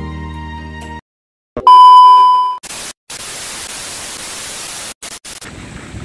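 Background music cuts off about a second in; after a brief silence comes a loud, steady beep lasting about a second, then a few seconds of static hiss with short dropouts. This is an edited transition effect, giving way near the end to the sound of surf.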